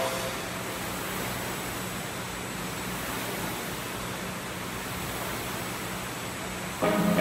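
Steady whooshing of an air-resistance rowing machine's flywheel as it is rowed. Music starts again near the end.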